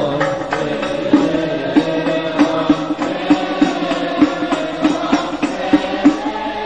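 Background music: Arabic devotional chanting (sholawat-style) with held sung lines over a steady beat of about three strokes a second.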